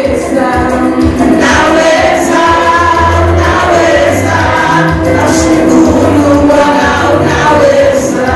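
Gospel praise-and-worship song: a choir of voices singing together over band backing with bass and a steady beat.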